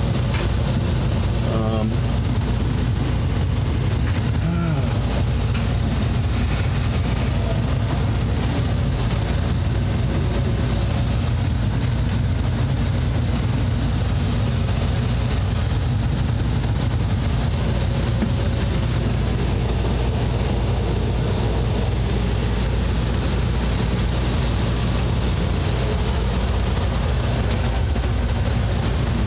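Steady low machine hum and rumble, unchanging throughout, with a few low tones held under an even noisy haze.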